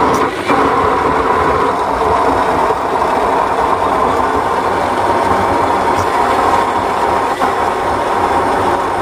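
Electric mixer grinder running steadily at full speed, its blade whipping a thick dahi bada batter in the stainless steel jar.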